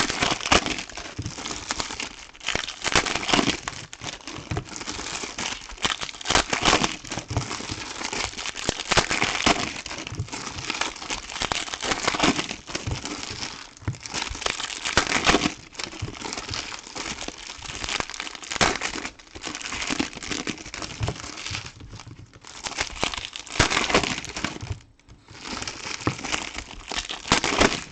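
Plastic and foil wrappers of trading-card boxes and packs crinkling and tearing as they are opened by hand, in irregular crackling spells with a brief pause near the end.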